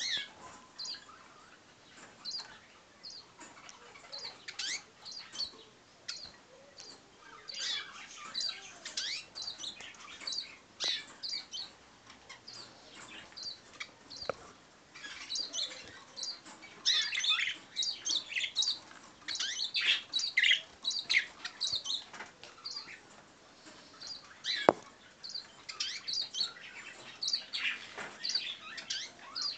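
Eurasian siskins chirping: many short, high calls in quick clusters that come and go, with a few sharp clicks among them.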